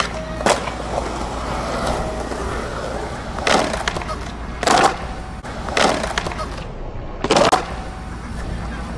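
Skateboard wheels rolling over concrete, broken by about five sharp clacks of the board: tail pops, a hit on a concrete ledge and landings.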